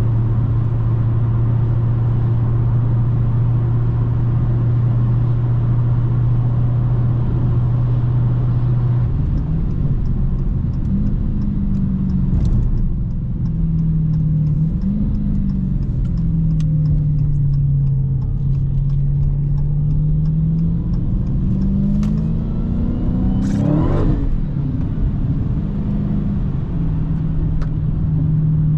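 Dodge Hellcat's supercharged 6.2-litre V8 on the move, holding steady revs at first, then rising and falling as the car speeds up and slows. It gives one quick, sharp rev a little before the end and then settles back.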